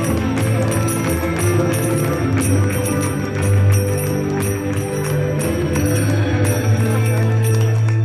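Dance music for a gypsy-style dance, with a strong steady bass and regular jingling percussion on the beat.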